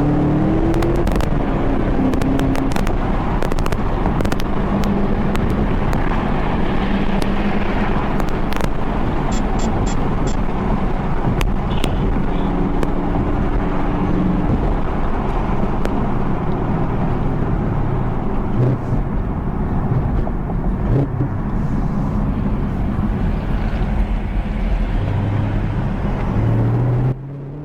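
Chevrolet Camaro ZL1's supercharged V8 climbing in pitch as it accelerates at the start, then running steadily at cruise under heavy wind and road noise, with scattered clicks; the sound drops off abruptly near the end.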